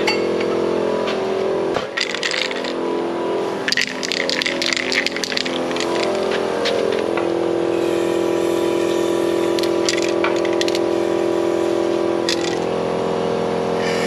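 John Deere combine's diesel engine running steadily, with a cluster of metallic clicks and rattles a couple of seconds in. About halfway through a steady whine joins the engine note and holds for several seconds, dropping away shortly before the end.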